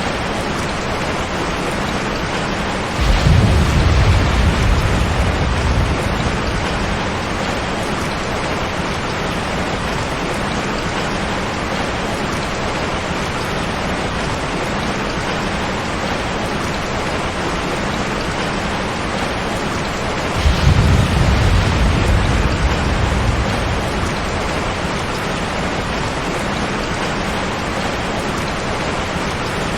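Heavy rain pouring steadily on a tin roof, with two claps of thunder: a deep rumble breaks out about three seconds in and fades over a few seconds, and a second one follows near two-thirds of the way through.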